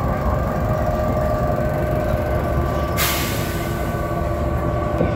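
Inside a BredaMenarinibus Avancity city bus under way: steady engine and driveline rumble with a few steady whining tones. About three seconds in, a sudden hiss of released compressed air that fades over about a second.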